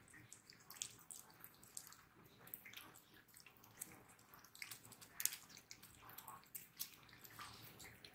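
Two cats licking a creamy paste treat from a squeeze tube: faint, quick, irregular wet licking and smacking clicks, with one louder smack about five seconds in.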